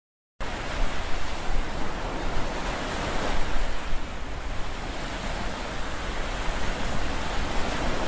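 Beach ambience: breaking surf and wind buffeting the microphone, a steady rushing noise with a rumbling, wavering low end, cutting in abruptly about half a second in.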